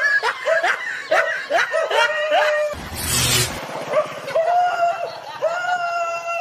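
A high-pitched, squeaky voice in quick chattering syllables, then two drawn-out whining calls that rise at the start. A noisy whoosh with a low thump comes about three seconds in.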